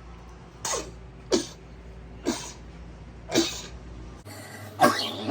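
A person coughing: four short coughs about a second apart, then a brief voiced vocal sound near the end.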